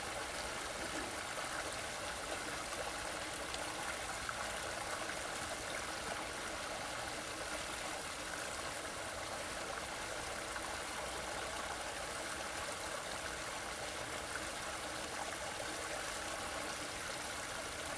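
A creek running: steady flowing water.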